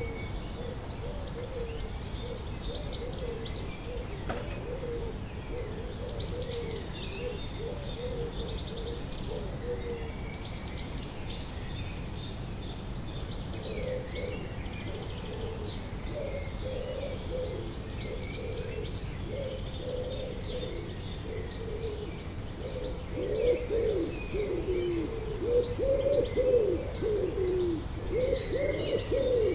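Dawn chorus of many birds: high, overlapping songs and trills throughout, with lower repeated calls that become louder from about two-thirds of the way in. A steady low rumble sits beneath the birdsong.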